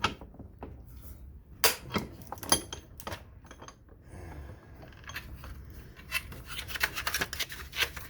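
Plastic housing of a router/modem box being scraped and pried at with a tool: scraping with a few sharp clicks and knocks around two seconds in, then a quick run of scratchy clicks near the end as the clipped-together case is worked apart.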